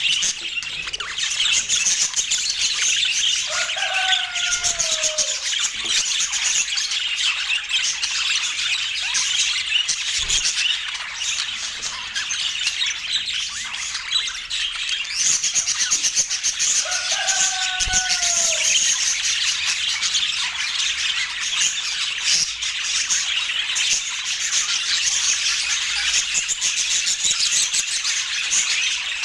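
Budgerigars chattering and warbling continuously, many short high calls overlapping in a steady stream. Two lower, downward-bending calls stand out, one about four seconds in and another about seventeen seconds in.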